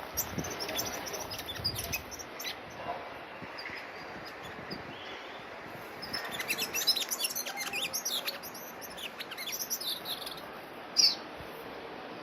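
Orange-breasted sunbird singing: a fast, high twittering of short notes that grows densest in the middle, with one louder note near the end.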